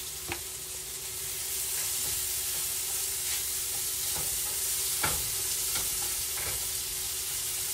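Sliced onions, bell peppers and mushrooms sizzle steadily as they sauté in freshly added butter in a nonstick skillet. A whisk stirring them scrapes and taps against the pan every second or so.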